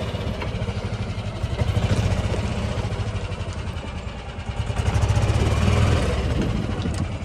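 Small engine of a gas-powered golf cart running as the cart drives, getting louder about two seconds in and again around five seconds.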